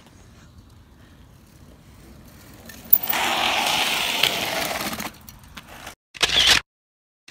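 Rushing wind and tyre noise for about two seconds as a mountain bike rides past, then a short, sharply cut burst of the same kind of noise near the end.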